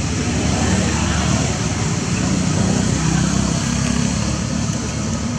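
Steady outdoor background noise: a low rumble with an even hiss over it, growing slightly louder in the middle.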